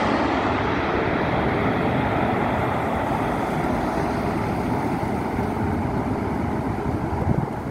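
Lufthansa Boeing 747-8's four GEnx-2B turbofans roaring as the jet flies away on final approach after passing low overhead, the sound fading and losing its high, hissing edge as it recedes.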